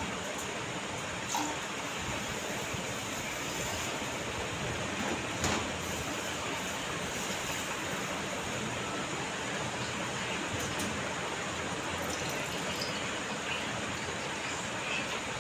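Steady rushing air noise of a laboratory flow hood's blower fan, with a few faint clinks of glassware being handled.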